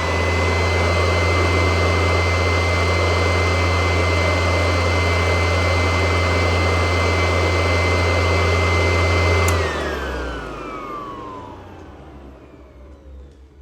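Antique vacuum cleaner running steadily with a high motor whine over a strong low hum. About nine and a half seconds in it is switched off, and the whine falls steadily in pitch and fades as the motor spins down.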